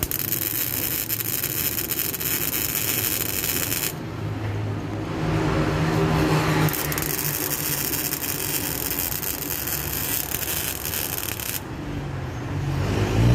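CO2 (MIG) welding arc crackling and hissing in two long runs, the first about four seconds, the second about five seconds, with a lower hum in the gap between them.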